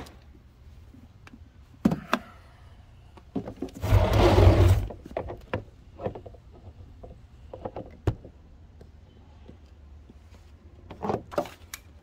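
Scattered clicks and knocks of a portable power station and its cables being handled, with a short, loud burst of rumbling noise about four seconds in and a few more knocks near the end.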